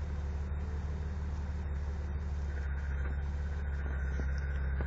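Two-door Jeep's engine running low and steady under light throttle as it crawls slowly through snow and ruts. A faint high whine joins about two and a half seconds in.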